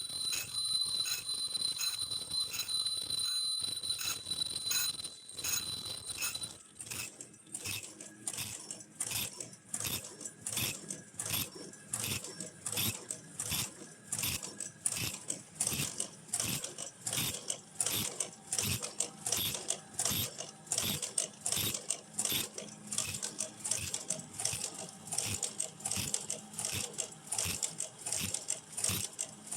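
Automatic disposable face mask production line running, its mechanism clacking in an even rhythm of about one and a half strokes a second. A steady high whine runs under the strokes for the first six seconds or so, then stops.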